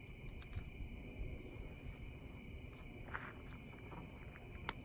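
Faint steady insect chorus, crickets, with a few soft clicks and a short rustle about three seconds in.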